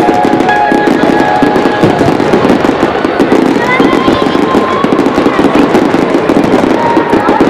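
Aerial fireworks display: a continuous, dense barrage of shell bursts and crackling, loud and without pause.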